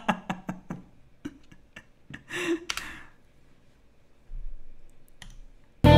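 A man's laughter trailing off in quick, fading breathy pulses, then a single exhale. Loud music cuts in right at the end.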